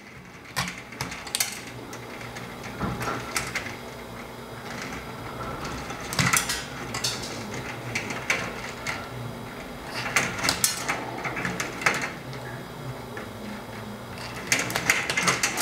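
Hand wire stripper (a combination stripper/crimping tool) clamping and pulling the insulation off the ends of thin ballast wires, one after another: irregular sharp clicks and snicks with the rustle of the wires being handled.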